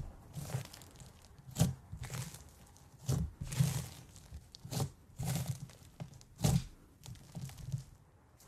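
Fingers pressing and kneading a thick, fluffy slime, giving a string of irregular sticky crackles and sharp pops, roughly one a second.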